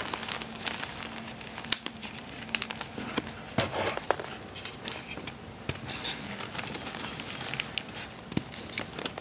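Gym chalk blocks being crushed by hand and the broken chunks and powder raked through: irregular soft crunches and sharp crackles of crumbling chalk, with a louder crunch about three and a half seconds in.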